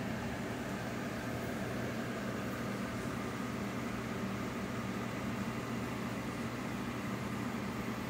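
Aquarium equipment running: a steady low hum with an even hiss, unchanging throughout.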